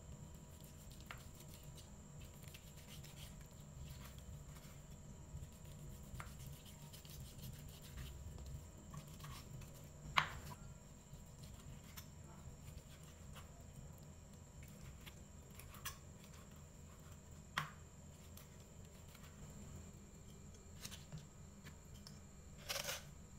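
Kitchen knife slicing raw pork on a wooden cutting board: faint soft cutting and scraping, with a few sharp taps of the blade on the board, the loudest about ten seconds in. A short scrape near the end.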